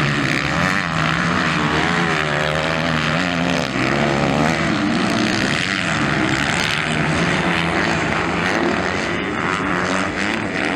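Several MX2 motocross bikes racing around the track. Their engines overlap, each revving up and down as the riders work the throttle and shift gears.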